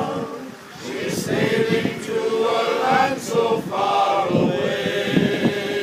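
Male voice choir singing a cappella in harmony, with held chords and a short break between phrases about half a second in.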